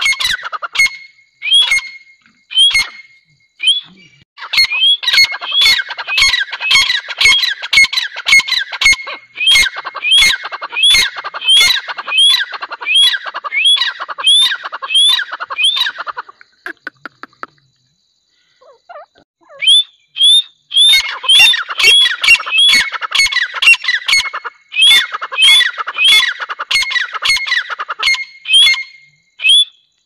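Grey francolins calling loudly: rapid runs of sharp, rising notes, several a second. They come in two long bouts with a break of about three seconds in the middle.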